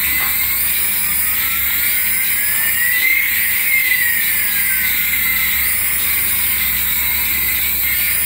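Small battery-powered toys running: a steady high electric whine, with one tone that rises over about two seconds and then falls slowly.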